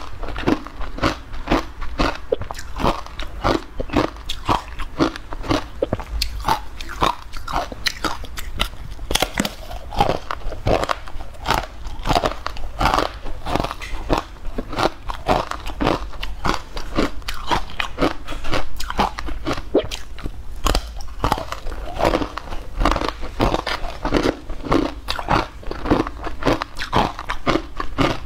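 Close-miked mouth sounds of someone biting and chewing a dry, crumbly green powder block: a steady run of crisp crunches, several a second, with no pause.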